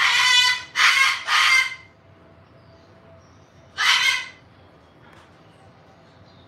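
Pet parrot calling loudly: three calls in quick succession, then one more about four seconds in.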